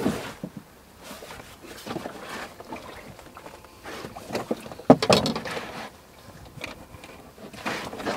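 Irregular knocks, thuds and rustling of handling in a small fishing boat, with the loudest sharp knock about five seconds in.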